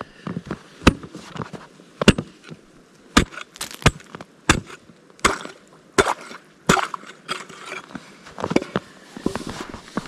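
A homemade steel ice chisel striking thin first ice, a dozen or so sharp chopping blows about one a second, chipping through the ice to test how strong it is.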